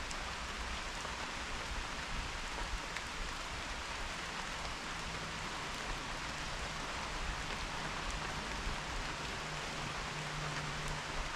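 Steady rain falling, an even hiss with occasional sharper ticks of single drops.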